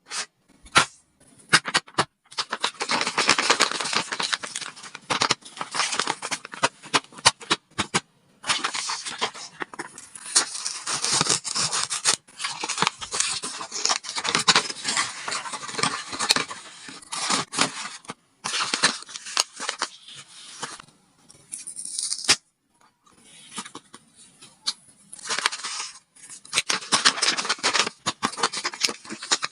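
Paper and tape being handled up close: irregular crinkling, rustling and scraping with sharp little crackles, in stretches broken by short pauses.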